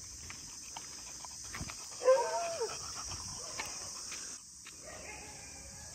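Crickets chirring steadily, with one short animal call about two seconds in.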